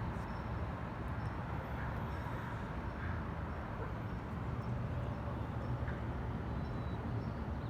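Steady low rumble of distant traffic, an even background hum with no clear calls or knocks.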